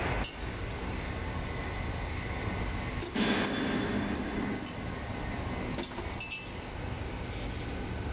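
Gear-driven DIN rail roll forming machine running steadily, with a few sharp metallic clicks and a louder burst of noise about three seconds in.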